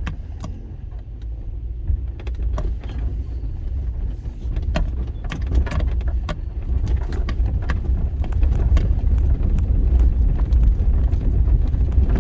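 Cabin sound of a 4x4 driving slowly over a rough, bumpy dirt road: a low rumble of engine and tyres, with frequent knocks and rattles as the truck jolts. It grows louder toward the end.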